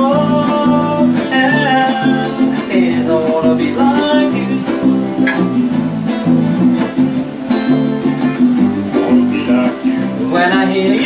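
Acoustic guitar strummed in rhythm under a man's wordless, scat-style sung melody.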